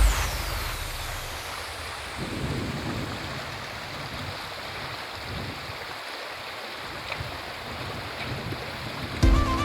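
Steady rushing of a waterfall, with a few irregular low swells.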